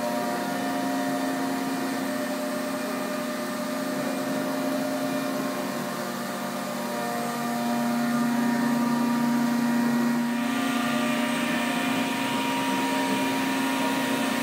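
MultiCam 5000 series CNC router cutting curved parts from a sheet held on its vacuum table. Its 10 HP Colombo spindle, with dust extraction through the spindle's shoe, makes a steady hum and whine of several tones over a hiss, getting a little louder about eight seconds in.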